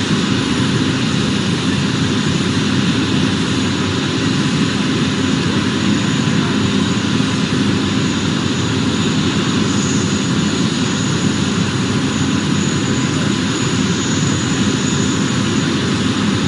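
Jet aircraft engine running, a loud steady noise with a faint high whine that comes and goes in the second half.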